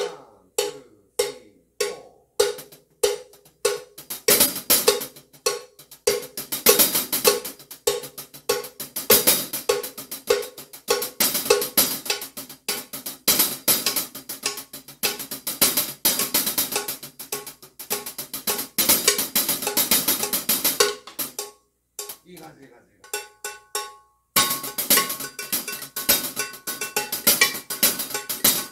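Child playing a drum kit: a hi-hat groove with accents over snare and bass drum, against a steady cowbell-like click a little under two beats a second. The playing stops briefly about three-quarters of the way through, then picks up again.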